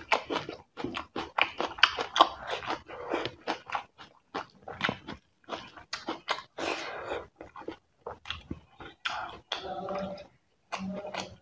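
A person eating fish curry close to the microphone: steady chewing with many short, irregular mouth clicks and bites.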